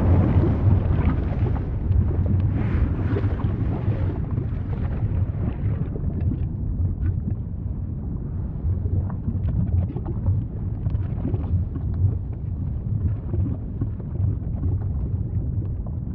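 Volcano rumbling deep and steady, easing off over the first couple of seconds from a louder blast, with faint scattered crackles through it.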